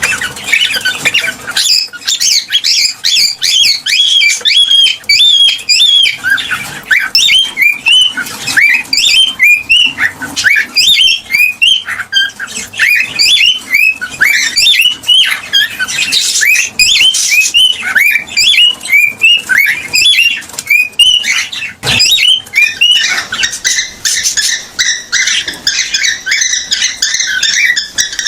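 Cockatiel mating song, the call that brings a hen into the mating position: a continuous run of short whistled notes, many rising sharply, turning into denser, more even chattering near the end.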